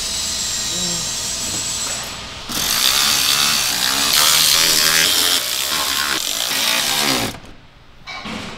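Cordless power driver running screws into a plastic under-tray panel. It runs steadily, gets louder about two and a half seconds in, and cuts off abruptly near the end.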